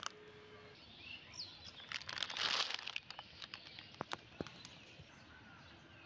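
An old plastic bag crinkling and crackling as it is handled, loudest in a burst about two to three seconds in, with faint bird chirps in the background.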